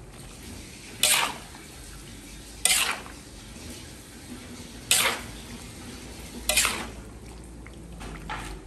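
Metal spatula scraping and knocking against a large metal wok while stir-frying: four sharp strokes, one every one and a half to two seconds, over a faint steady hiss.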